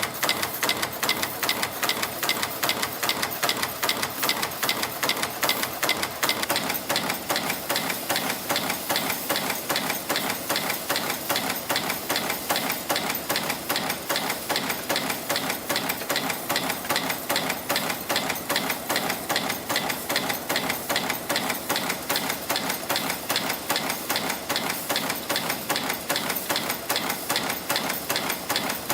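CNC wire and strip stamping-forming machine (YHM FB-230) running steadily, pressing and bending 5.3 mm wire into safety pins. An even, rapid mechanical clatter of about two to three strokes a second, in line with its rate of 150 pieces a minute.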